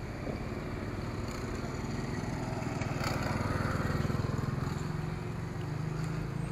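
A motor vehicle's engine running, growing louder to a peak about four seconds in and then easing off.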